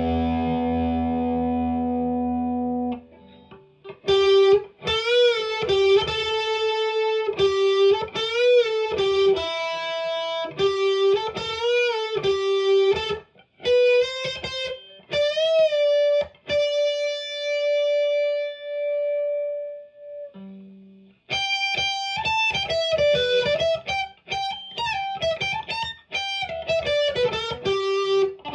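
Electric guitar, a Fender Telecaster played on the setting that combines its Lindy Fralin High Output bridge pickup with a CuNiFe Wide Range humbucker. A ringing chord dies away about three seconds in, then a single-note lead with string bends follows, with a long held note in the middle, a short pause, and a quicker run of notes near the end.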